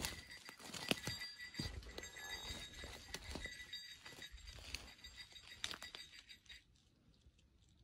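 Hiker's footsteps on a forest trail: irregular thuds and scuffs with small knocks, stopping about six and a half seconds in.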